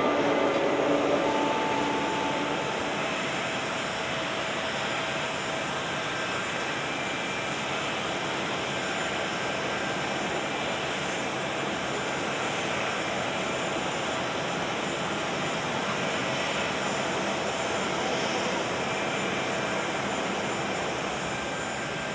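Steady jet aircraft noise on an airport apron: a constant roar with a faint high whine running over it.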